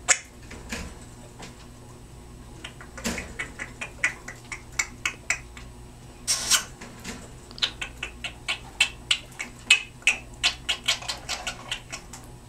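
Timneh African grey parrot making a long run of kissing smacks, about three a second, with a couple of short hissing bursts among them.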